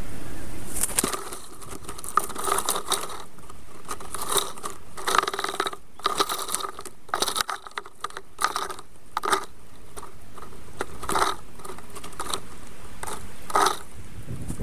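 Irregular short clicks and scrapes of sticks being shifted in a black stork's twig nest as the stork works the nest material with its bill.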